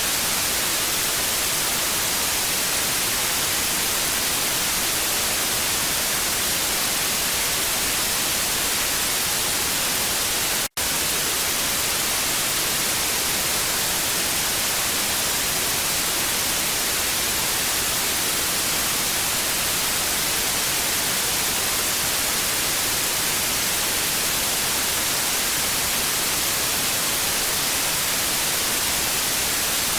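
Television static: a steady, even hiss weighted toward the high end, broken once by a split-second dropout about ten seconds in.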